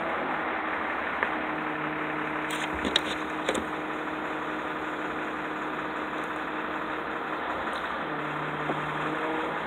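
Bucket truck's engine running steadily at idle, with a few sharp clicks around three seconds in.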